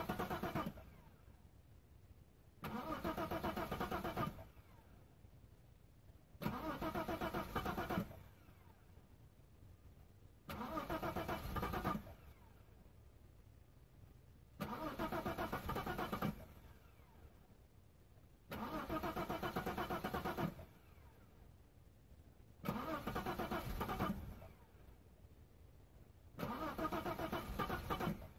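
A Bitter SC's 3-liter engine being cranked by its starter in eight short bursts about four seconds apart, failing to catch and run. This is a hard cold start, the engine struggling to fire.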